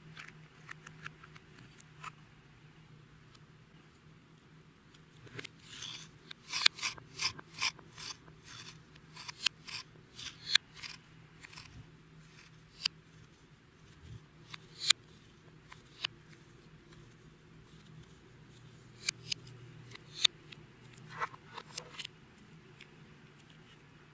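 Clear slime being worked by hand, giving off sharp, irregular pops and clicks, bunched in quick clusters at times and sparse between.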